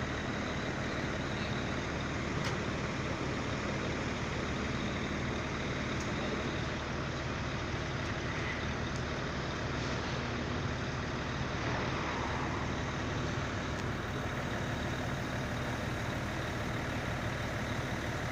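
Truck diesel engine running steadily, an even low hum.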